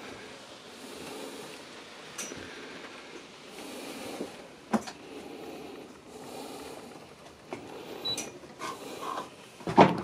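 Faint steady background noise with scattered sharp clicks and knocks, the loudest near the end, as of someone moving about inside a boat's cabin.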